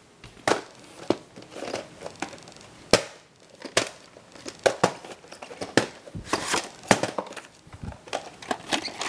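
Hands handling a VHS tape and its plastic case: irregular sharp clicks and taps with rustling and crinkling in between.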